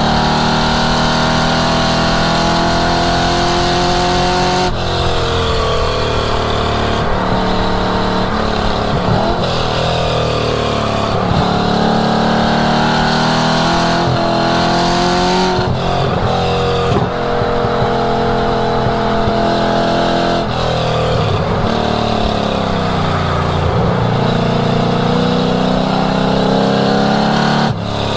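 1967 Ford Mustang's 5.0-litre V8 driven hard on a race track. The engine note climbs under full throttle, drops abruptly at gear changes and sweeps down and back up again as the car brakes and powers out of corners.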